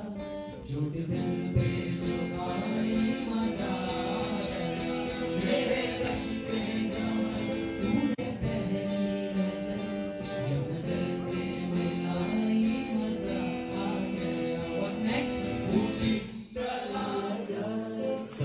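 Several male voices sing a medley of garba songs together into microphones over a strummed acoustic guitar, heard live and amplified. There is a brief break near the end.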